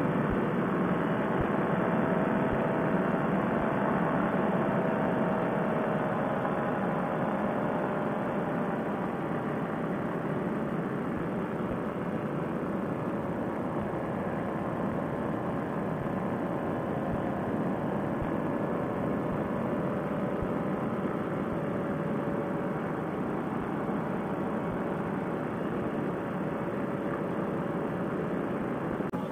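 Fresh Breeze Monster paramotor engine running steadily in flight, a constant drone mixed with wind rush.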